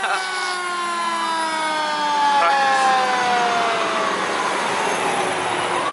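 Fire truck siren sounding, its pitch falling slowly over several seconds and beginning to rise again near the end.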